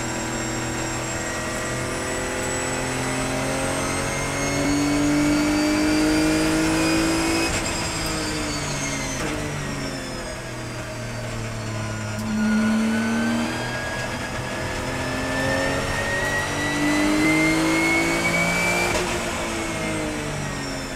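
Porsche 991 GT3 Cup race car's flat-six engine heard from inside the cockpit, driven at moderate revs on a warm-up lap. It rises in pitch for several seconds as it pulls, drops as the driver eases off about a third of the way in, then pulls up again and drops near the end.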